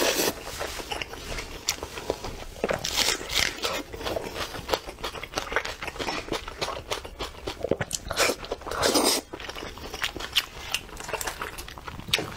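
Close-miked eating of braised sheep head: wet chewing and crunching, many small sharp clicks, with louder bursts about three seconds in and again around eight to nine seconds in.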